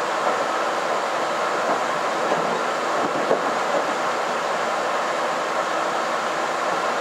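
Steady running noise inside the cabin of a KiHa 261 series diesel limited express train rolling along, with a few faint clicks from the wheels over rail joints.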